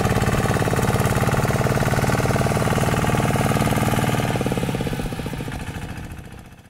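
Kubota single-cylinder diesel engine of a two-wheel hand tractor running steadily with a fast, even beat while its cage wheels work through paddy mud, fading out over the last two seconds.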